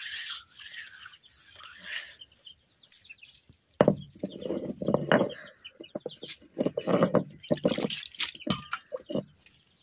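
Hand-held grinding stone scraping back and forth over a wet stone slab (sil-batta), grinding a wet paste. It begins as a quieter wet rubbing, and from about four seconds in becomes loud, gritty grinding strokes in repeated runs.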